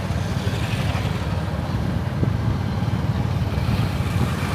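Steady low rumble of a moving vehicle, engine and road noise.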